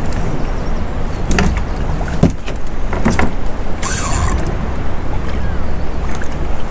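Steady low rumble of sea and boat noise aboard a small fishing boat, broken by a few knocks and clicks in the first half and a short hiss about four seconds in.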